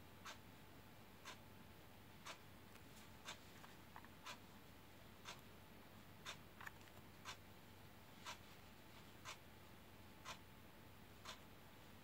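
Near silence with faint ticks evenly spaced once a second, the ticking of a clock.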